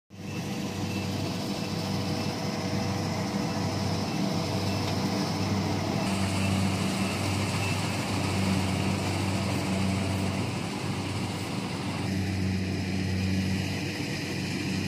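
Rice combine harvester's engine running steadily at a constant speed, with a low even drone.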